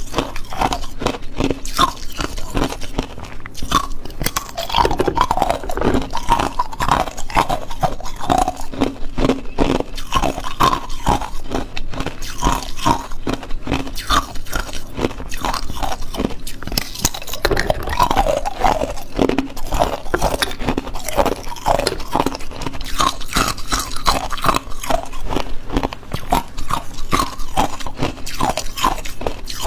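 Teeth biting and crunching through hard ice cubes, a rapid, continuous run of sharp crunches and cracks with chewing between bites.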